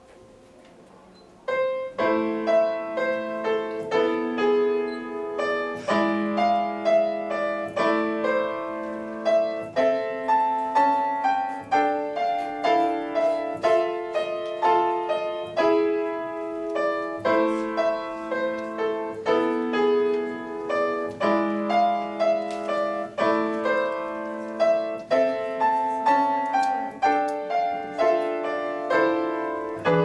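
Solo grand piano playing a piece, starting about a second and a half in after a short hush, with a steady stream of struck notes and held chords.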